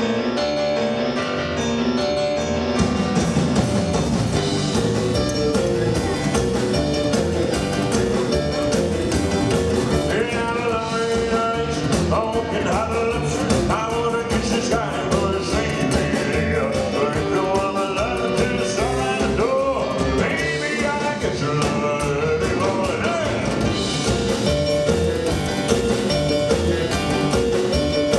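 Live rock and roll band playing: hollow-body electric guitar, keyboard and drums. The sound fills out about three seconds in, and a man sings over the band through the later part.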